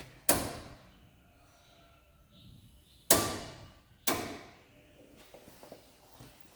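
Three sharp clacks, the first just after the start and the other two about a second apart near the middle, each dying away with a short ringing tail.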